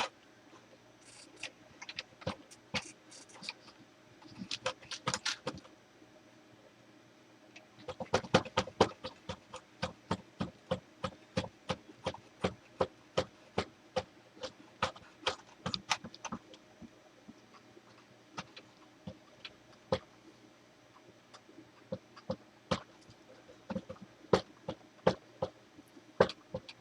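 Metal hand tools clicking and tapping on metal parts while an attachment is bolted onto a lathe: a few scattered clicks, then a quick run of about two to three clicks a second from about eight seconds in, thinning out after about sixteen seconds.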